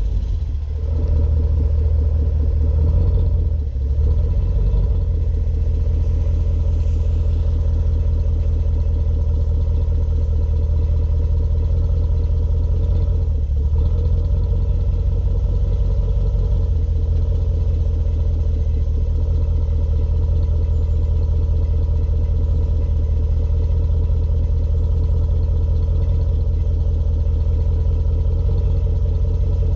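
Range Rover SVR's 5.0-litre supercharged V8 running on its standard exhaust, a deep, steady note close to idle. The level dips briefly a few times in the first half, then holds even.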